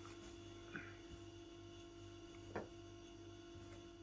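Near silence: room tone with a steady low hum, and two faint soft taps, one about a second in and one past the middle.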